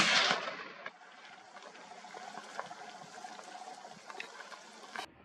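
Gunshot echo rolling back off the hillside and fading over about a second, followed by faint outdoor quiet with a few small clicks and one short sharp click near the end.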